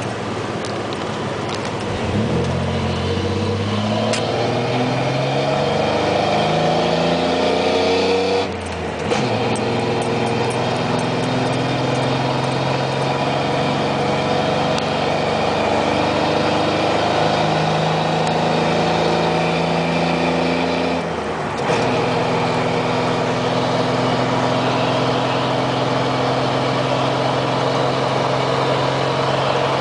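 A 1997 Dodge Ram 1500's 3.9 L V6, through a Flowmaster Super 44 muffler with no tailpipe, pulling away under acceleration: the engine's pitch climbs, drops briefly with an upshift about 9 s in, climbs again, drops with a second upshift about 22 s in, then holds steady at cruise. The engine is running with a cylinder-6 misfire (codes P0306 and P0206).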